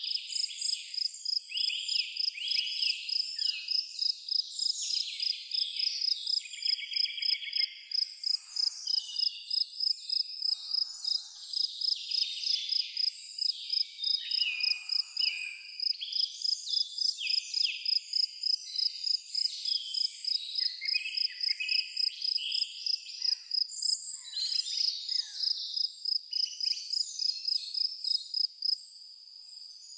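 Several birds singing and calling over an insect's steady high-pitched chirping, pulsed at about two to three chirps a second. The insect drops out briefly near the end.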